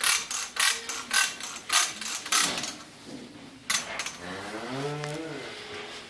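Calf puller's ratchet clicking about twice a second for the first couple of seconds. Then, near the end, a cow in labour lets out one groan that rises and falls, pushing through a contraction.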